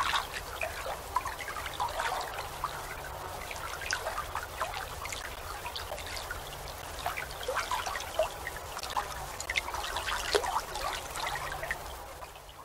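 Gentle water lapping and trickling: a steady, irregular run of small splashes.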